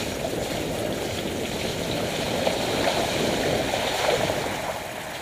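Steady rolling noise of a mountain bike riding down a wet, stony lane with water running along it: tyres on loose stones and water, rattling through the camera mount.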